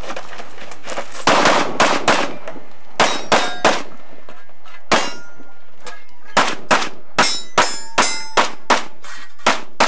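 Handgun fired in quick strings of shots, about twenty in all, starting about a second in, with pauses as the shooter moves between positions. Several shots are followed by the ringing clang of steel targets being hit.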